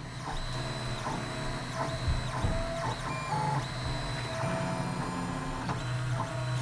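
Robo R2 3D printer laying down a raft: its stepper motors whine in short tones that jump in pitch with each move of the print head, over a steady low hum.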